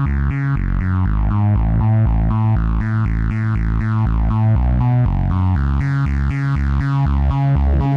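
Music with a steady, quick rhythm of short pitched notes over a repeating bass line.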